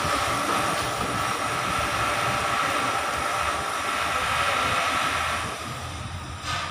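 Steady mechanical drone with a constant high whine running through it, easing off briefly near the end.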